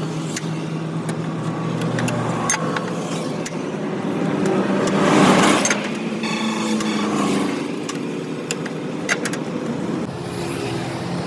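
Vehicle engine running steadily, with scattered sharp metallic clicks and taps. A louder rushing swell comes about halfway through, like a vehicle passing close by.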